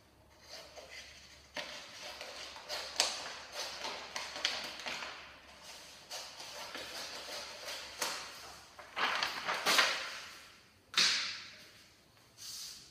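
Paper backing being peeled off an air-release vinyl stripe and handled: irregular rustling and crinkling swishes, loudest in a few sharp sweeps late on.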